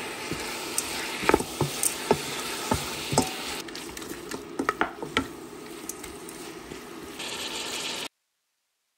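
Mutton pieces and onions sizzling in oil in a stainless-steel pot as a wooden spatula stirs them, knocking and scraping against the pot wall again and again. The sound cuts off suddenly about eight seconds in.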